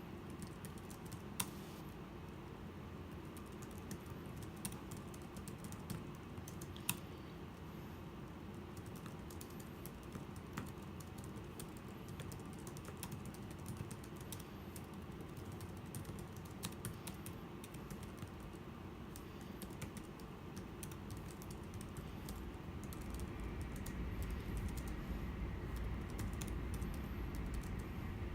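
Typing on a Logitech iK1200 iPad Pro keyboard case: a steady run of soft keystroke clicks with a couple of sharper key hits. A steady low rumble sits underneath and grows louder in the last few seconds.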